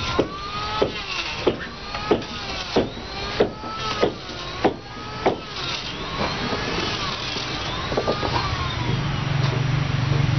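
Rhythmic blows of a hand tool on timber, about three every two seconds, stopping about five seconds in. A low steady motor hum comes in near the end.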